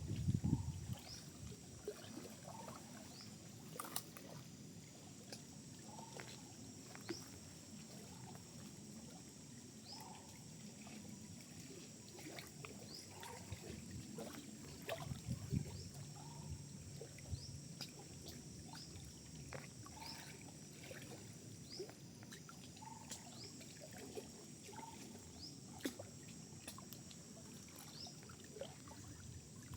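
Quiet forest ambience: water trickling and lapping under a steady faint high hiss, with short falling bird chirps repeating every second or two throughout. A louder low thump comes right at the start.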